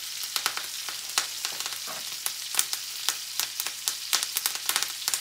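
Filet mignon steaks sizzling in hot butter and oil in a cast iron skillet: a steady high hiss with frequent sharp pops and crackles of spattering fat.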